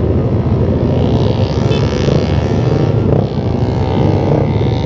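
Motorcycle engines running loudly and steadily, close up: the rider's Yamaha Jupiter MX 135 single-cylinder four-stroke along with the scooters lined up beside it.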